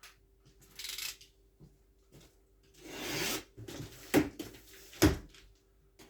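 A large cardboard shipping box being handled and opened: a short scraping rustle, a longer ripping, rustling noise, then a few sharp knocks, the loudest two about a second apart near the end.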